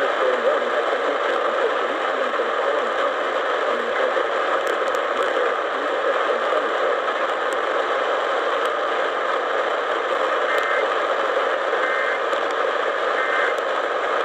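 Steady static hiss from a weakly received radio broadcast. Near the end come three short, faint two-tone data bursts buried in the static, typical of an Emergency Alert System header coming through.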